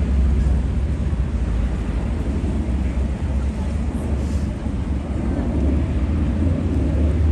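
City street ambience: a steady low rumble of traffic.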